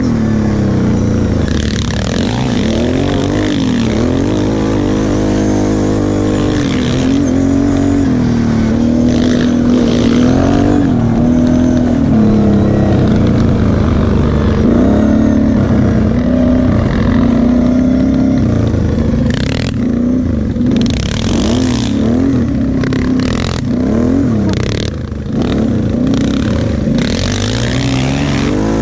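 Kawasaki KFX 700 V-Force quad's V-twin engine, heard from the rider's seat, running under constantly changing throttle, its pitch rising and falling as it accelerates and eases off. A few clattering knocks come in the last third.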